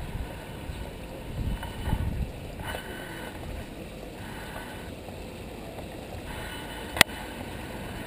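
Steady splashing and trickling of a small pondless waterfall running over stacked rocks, with low rumbles on the microphone about one and a half to two seconds in and a single sharp click near the end.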